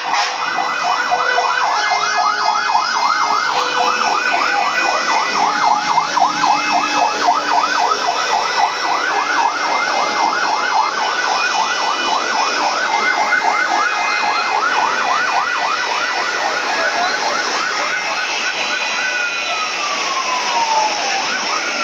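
Fire engine's electronic siren on a fast yelp as the truck arrives. Near the end it changes to slow falling sweeps as it winds down.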